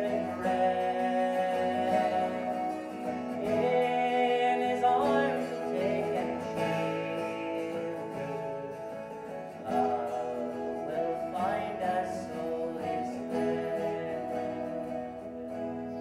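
A man singing with his own strummed acoustic guitar, the song fading as it draws to a close near the end.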